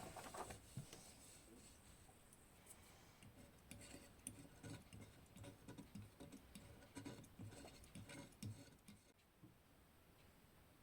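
Faint, scattered light taps and clicks of small objects being handled on a work surface, thinning out about nine seconds in.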